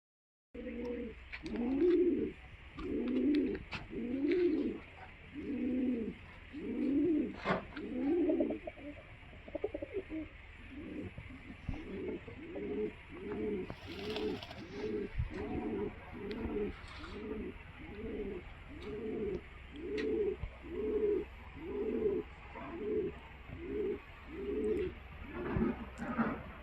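Pigeons cooing in a long run of low, repeated coos, about one a second at first and then somewhat quicker, with a few faint chirps.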